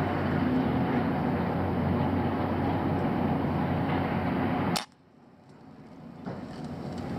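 Steady low background drone, then a single sharp click near the end from a moderated PCP air rifle firing. After it the sound drops away almost to silence and slowly comes back.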